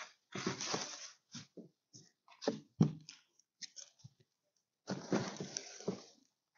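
Bubble wrap and plastic film rustling and crinkling in irregular bursts as they are pulled off a polycarbonate window panel. The loudest crackles come twice, close together, near the middle.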